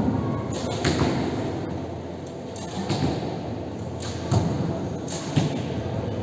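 Bows being shot in a large hall: about five sharp snaps of bowstrings released and arrows striking the target butts, spaced irregularly over a few seconds.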